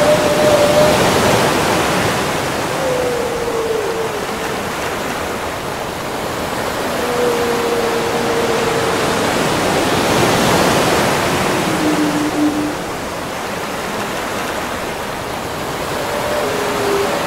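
Whale calls over a steady rush of ocean water: about five long, moaning tones, each a second or two long, some held level and some gliding downward in pitch, with gaps of a few seconds between them.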